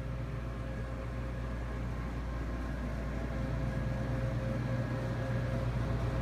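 Steady low electrical hum with a faint steady whine above it, from commercial kitchen refrigeration and ventilation equipment running; it grows slightly louder near the end.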